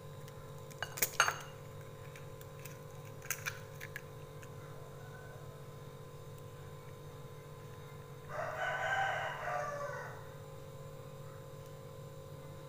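An egg being tapped on the rim of a glass bowl and cracked open: a quick run of sharp clicks about a second in, then two softer clicks a couple of seconds later. About eight seconds in, a drawn-out call of nearly two seconds sounds in the background, falling in pitch at its end.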